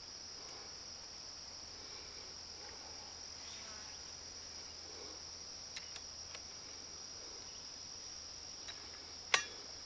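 Steady high-pitched chirring of crickets, with a few light clicks and one sharper click near the end as parts of the multitool trimmer are handled.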